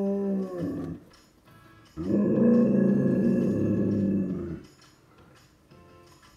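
Dog howling: a howl that drops in pitch and trails off about a second in, then after a short pause a second howl of about two and a half seconds.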